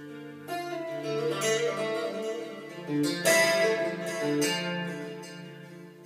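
Acoustic music with plucked strings, guitar-like, playing through Ruark Broadsword bookshelf hi-fi speakers and heard in the room. Notes ring on with fresh plucks through it, the loudest a little after three seconds in, and the music fades down near the end.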